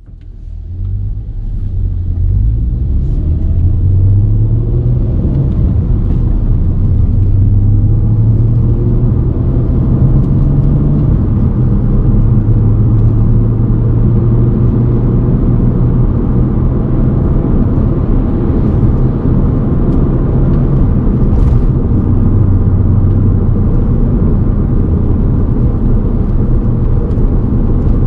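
Volkswagen Golf Mk5 R32 driving, with a low, steady rumbling growl from a worn wheel hub bearing under engine and road noise; it fades up over the first two seconds.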